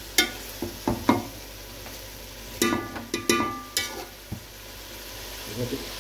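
Metal utensil knocking and scraping against a pan while stir-frying fried rice, over a steady sizzle of frying food. The strikes come in irregular groups, and a cluster about halfway through rings with a metallic tone.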